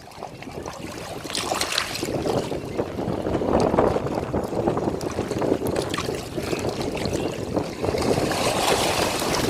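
Ocean waves washing onto the shore: a continuous rushing that swells and ebbs, cresting about four seconds in and again near the end.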